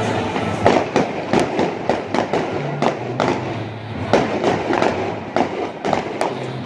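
Stadium fireworks show: a rapid, irregular run of bangs and crackles from shells bursting, several a second, with music underneath.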